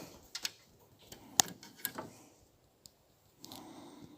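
Handling noise of small hard parts: a few sharp clicks and light scrapes, the loudest about a second and a half in.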